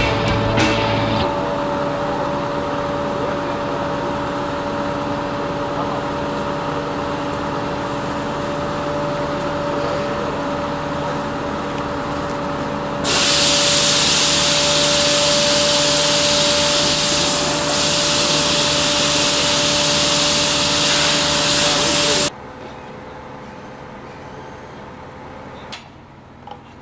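A heavy machine's engine runs steadily under a crane lift. A loud hiss comes in about halfway through and cuts off suddenly about 22 seconds in. After that only a quieter background and a few faint knocks remain.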